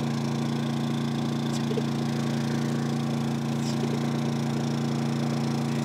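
Portable generator engine running at a steady, even hum, with a couple of faint rustles of paper towel being patted on top.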